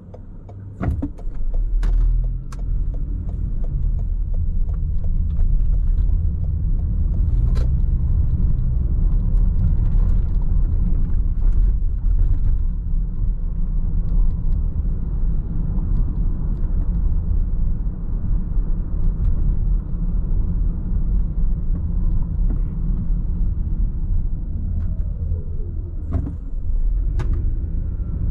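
Car driving: a steady low rumble of engine and road noise that builds over the first couple of seconds as the car gets moving. A few sharp clicks and knocks come through it, a small cluster near the start and a couple near the end.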